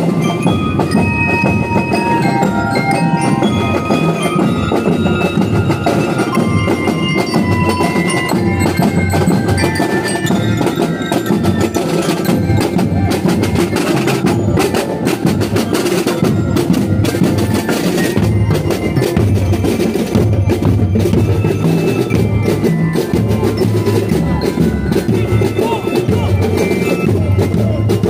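A marching drum-and-lyre band playing: metal bell lyres ring out a march melody over snare and bass drums. The bell melody is clearest in the first half, and the drums carry most of the second half.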